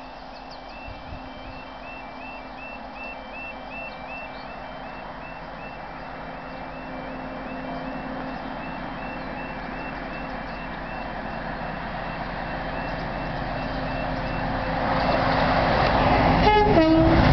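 Level crossing warning alarm repeating its two-note yodel in the first half, while a Class 40 diesel locomotive, 40145, approaches at speed, its English Electric 16-cylinder engine growing steadily louder. Near the end the locomotive sounds its horn briefly, stepping from a high note to a low one.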